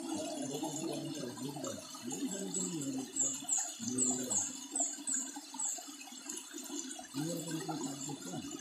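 River water running and churning as it pours into a dug pit in the gravel bank. Midway through, a quick run of about eight short, high, falling chirps sounds over it.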